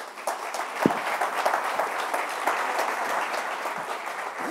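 Audience applauding, a dense steady patter of many hands clapping, with one low thump about a second in.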